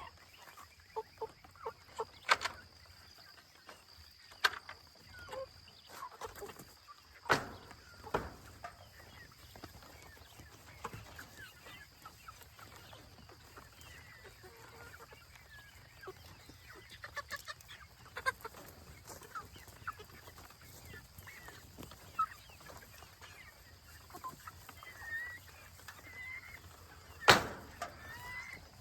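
Young chickens clucking and peeping, with scattered sharp knocks; the loudest knock comes near the end.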